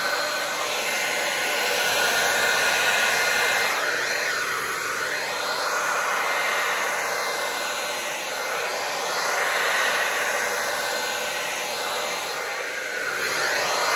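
Handheld hair dryer blowing steadily, its airstream pushing wet acrylic paint across a canvas in a Dutch pour. The rush of air swells and dips gently as the nozzle is moved over the canvas.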